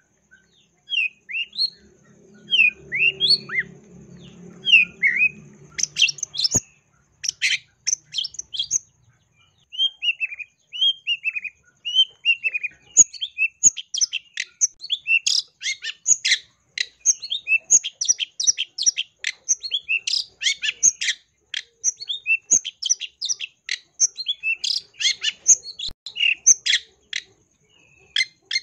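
Long-tailed shrike (cendet) singing a varied song full of mimicked phrases. It opens with slurred falling notes, then from about halfway through breaks into a fast, dense run of short, sharp chattering notes.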